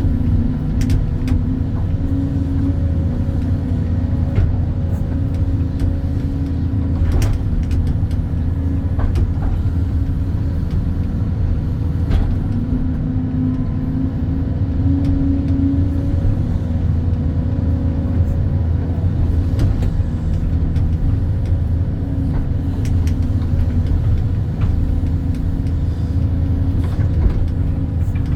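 Excavator's diesel engine running steadily under working load, a loud low drone with an even hum, with a few sharp clunks from the machine.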